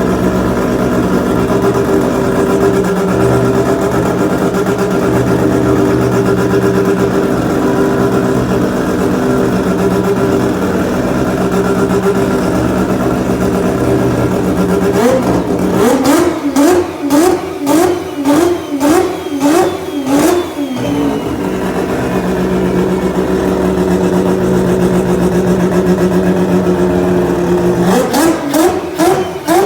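Mazda four-rotor rotary engine idling steadily, then revved in a quick run of about ten sharp throttle blips, each rising and dropping back. It settles to idle again and starts a second run of blips near the end.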